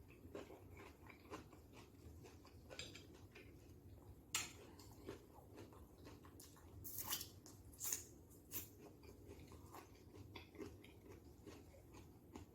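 Faint mouth sounds of a person chewing a raw cucumber stuffed with taco filling: soft wet clicks throughout, with a handful of louder crunches around the middle.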